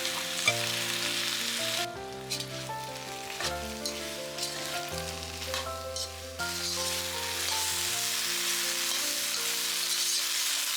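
Okra and spices sizzling as they fry in a pan, with the clicks of a spatula stirring. The sizzle drops away from about two seconds in and picks up again around six seconds. Soft background music plays under it.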